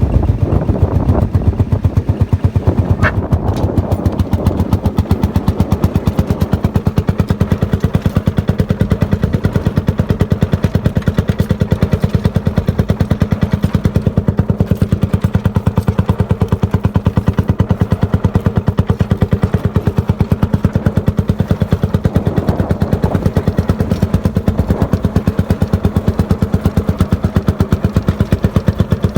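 Tractor engine running steadily under the load of a plough, with an even, rapid exhaust beat and a steady hum. A brief click or knock comes about three seconds in.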